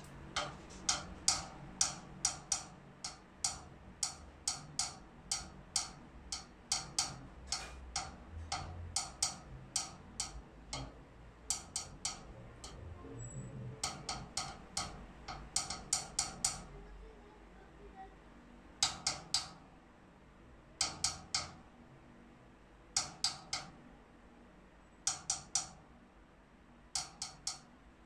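Wooden drumstick tapping lightly on snare drum and tom, giving sharp clicking strokes in a rhythmic groove. The strokes come in a steady run of two to three a second for about the first half, then in short groups of three or four spaced about two seconds apart.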